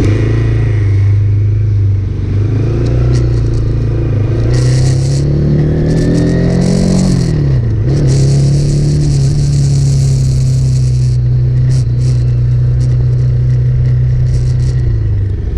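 Motorcycle engine idling through an aftermarket Scorpion muffler, with one rev that climbs over a couple of seconds and drops back to idle about halfway through.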